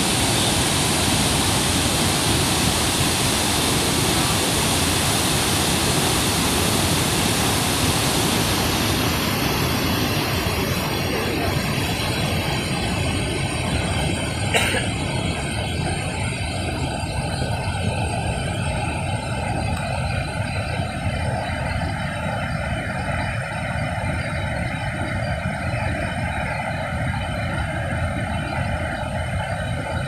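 Chitrakot Falls on the Indravati River in flood: a steady rush of heavy falling water. Its hiss thins about ten seconds in, leaving a deeper rumble, and there is a single click about halfway through.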